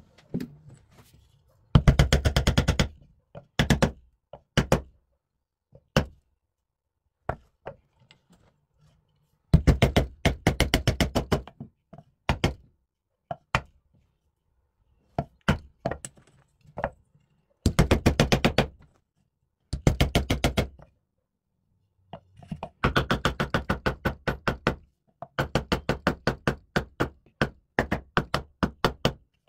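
Rapid runs of sharp knocks on wood during woodworking, about a dozen a second in bursts of about a second, with single knocks between them.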